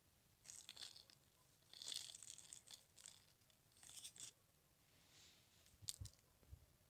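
Dry, crumbly rotten wood from the saw's handle socket crackling and rustling under fingers on a plastic tarp, in several short bursts, with one sharp click near the end.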